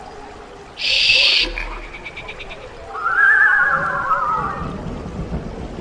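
Horror sound effects: a short, harsh, hissing shriek about a second in, a brief fast ticking, then a long wavering, creature-like wail that sags in pitch as it fades.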